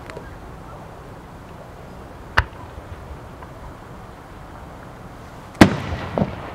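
Fireworks: a single sharp crack about two and a half seconds in, then a loud bang from an aerial shell bursting into a round spread of stars near the end, with a second bang and a rumbling echo after it.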